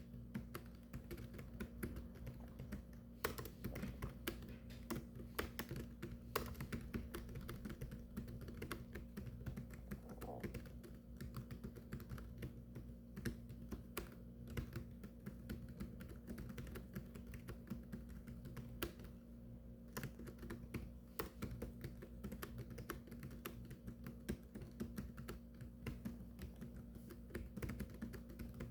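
Continuous, fast typing: many irregular key clicks with no pauses of note, over a steady low electrical hum.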